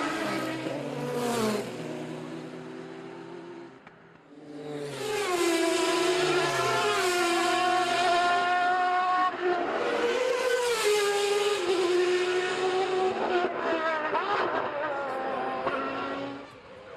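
Sports-prototype race car engines passing at speed. One car's engine falls in pitch and fades away over the first few seconds. Then another approaches and runs at high revs, its pitch dropping and climbing again about halfway through, before it fades near the end.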